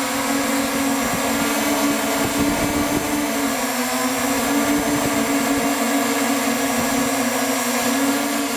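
Electric octocopter's motors and propellers humming steadily, heard from the camera mounted on the aircraft. Wind rumbles on the microphone, most strongly between about one and four seconds in.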